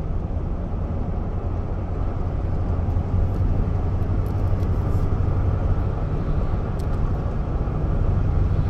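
Steady engine and tyre rumble heard from inside a pickup truck's cab while it drives at speed on a paved road.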